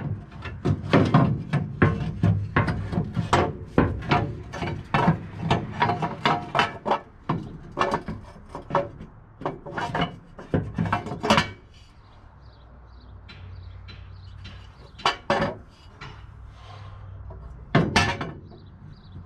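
A steel exhaust header clanking and knocking against the truck's underside as it is worked up into place from below: rapid, irregular metal knocks for the first eleven seconds or so, then quieter, with two single knocks near the end.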